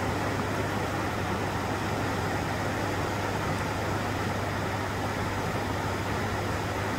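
Steady rushing of whitewater river rapids, an even, unbroken roar with a strong low rumble.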